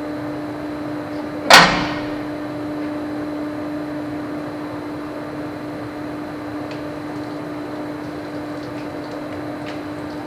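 A steady hum with a low tone, and one sharp, loud knock about a second and a half in that dies away quickly.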